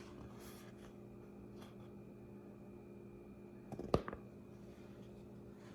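Quiet room tone with a steady low electrical hum and a faint high whine, broken about four seconds in by a single sharp tap or knock.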